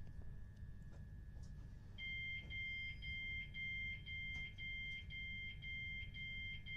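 Class 377 Electrostar door warning beeps: a two-pitched bleep repeating about twice a second, starting about two seconds in, over the low hum of the stationary train.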